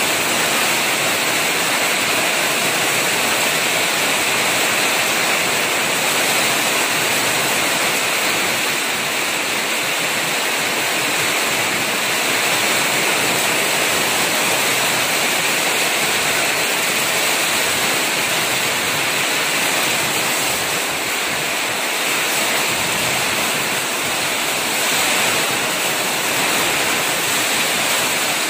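Heavy rain pouring down in a rainstorm: a steady, dense hiss with no breaks.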